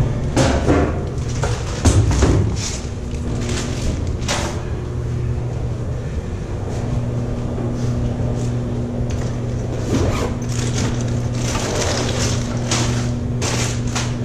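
Steady low hum of machinery inside a GE 1.6 MW wind turbine, with rustling, knocks and clinks as hands rummage through gear bags, busiest in the first few seconds and again near the end.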